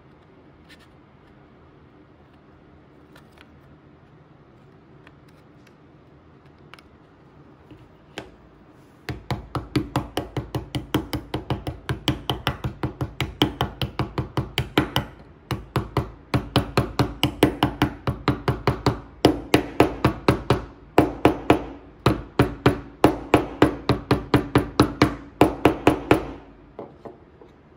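Rubber-headed mallet tapping laser-cut wooden pieces together into their slots: a long run of sharp knocks, about three a second, with a short break midway and a few last taps near the end. Before the tapping starts, only light clicks of the parts being handled.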